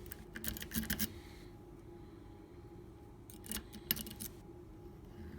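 Metal lock-pick rake scraping and clicking over the pin tumblers of a Master Lock hasp-and-staple padlock held under light tension, in two short bursts of quick ticks, the first about a second long and the second starting around three seconds in.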